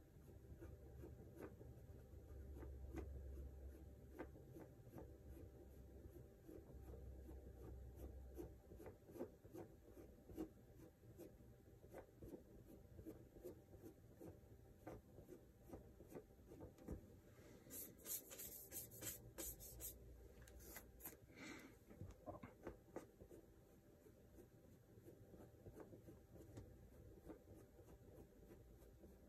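Faint scratching and rubbing of a pencil-like drawing tool worked in many short strokes over the painted surface, with a brief stretch of sharper, higher scratching about eighteen seconds in.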